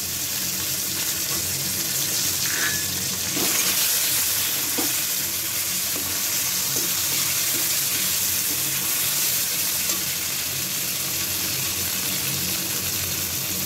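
Chopped tomato sizzling in hot oil in a steel kadai, with a flat metal spatula stirring it and scraping the pan a few times.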